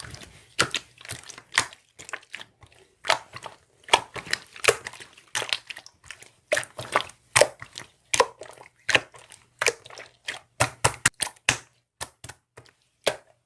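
Irregular crisp crunching and crackling, several sharp cracks a second, over a faint low hum that stops near the end.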